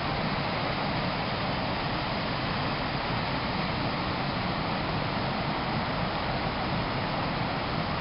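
Waterfall pouring into its pool: a steady, unbroken rush of falling water.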